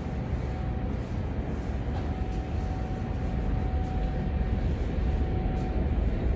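New York City subway train approaching the station through the tunnel: a low rumble that grows slowly louder, with a faint steady whine.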